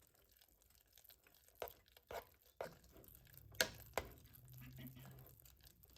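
Faint kitchen handling sounds: a few soft clicks and crinkles, the sharpest about three and a half seconds in, as food is mixed and handled.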